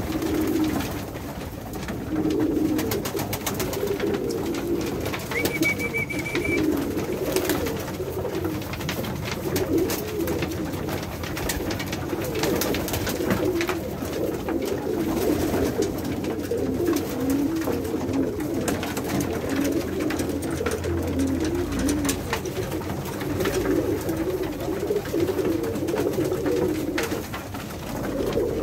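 A flock of Pakistani high flyer pigeons cooing continuously in a small enclosed loft, many overlapping calls at once, with scattered light clicks.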